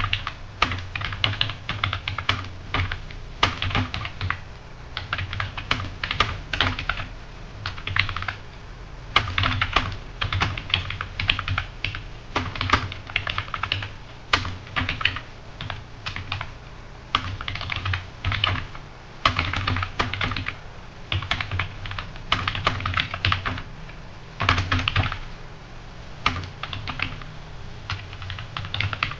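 Computer keyboard being typed on fast during a timed typing test: rapid runs of key clicks in bursts, broken by short pauses.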